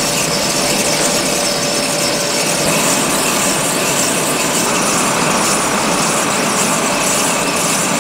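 Steady mechanical rushing noise of a White 9800 planter's row units being pulled through crop stubble, heard close up from the toolbar. A faint thin whine fades out about three seconds in.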